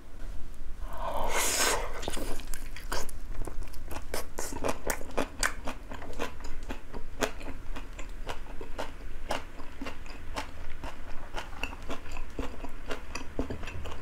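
A man biting into a boiled duck leg topped with chives and chewing it: one noisy bite about a second in, then a long run of small, quick mouth clicks and smacks as he chews.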